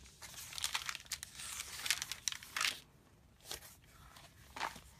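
Thin Bible pages rustling and crinkling as they are turned by hand: a quick run of page turns through the first three seconds, then a short pause and two single turns.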